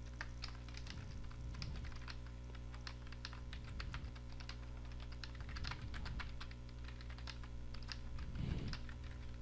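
Computer keyboard typing: a run of quick, irregular key clicks as a line of text is typed, over a steady low hum.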